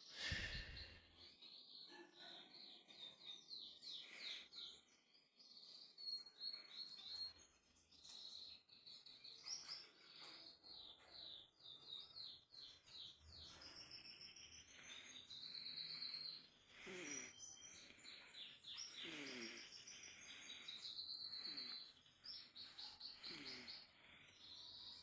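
Small bird chirping and twittering faintly in quick, high runs of notes.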